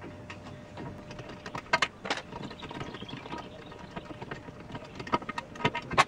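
Scattered light metallic clicks and knocks as the wing nuts holding the removable bar across a boat's engine compartment are turned off by hand and the bar is worked loose, with a few sharper knocks about two seconds in and near the end.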